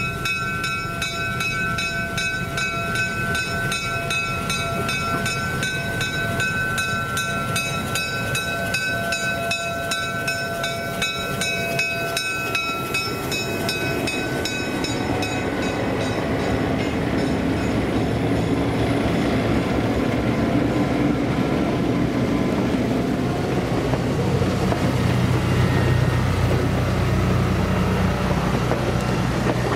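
A bell rings with steady, evenly repeated strikes for about the first half. It fades out as the low rumble of vintage EMD diesel locomotives and their passenger train grows louder and carries on to the end.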